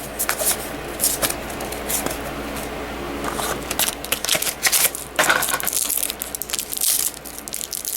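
Trading cards being handled and flipped through, with irregular short clicks and rustles of card stock.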